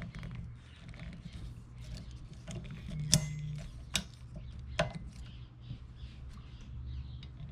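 A windshield wiper blade being slid onto its wiper arm and latched, giving a few sharp plastic-and-metal clicks and small handling rattles.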